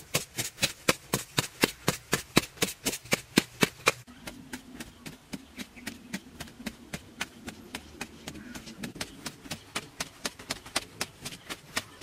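A short-handled hoe chopping into dry, hard-packed soil in quick, even strokes, about four a second. The strikes turn softer after a cut about four seconds in.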